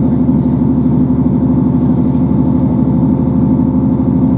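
Inside the passenger saloon of a Great Western Railway Class 158 diesel multiple unit running at speed: a steady diesel engine drone over the train's running rumble.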